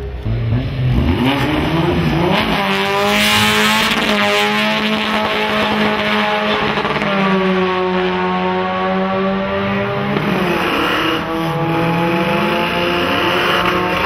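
Two cars launching from a drag strip start line and accelerating hard down the quarter mile. Their engines climb in pitch and drop back at each upshift, several times over the run.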